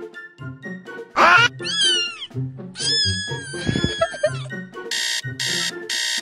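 Meowing over background music: a cat meows twice, the second call long and wavering, then three short high-pitched beeps near the end.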